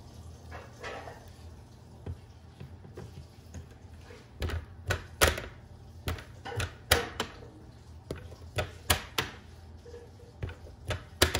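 Plastic flap of a PetSafe dog door being pushed and swinging, knocking against its frame in a run of a dozen or so sharp clacks through the second half.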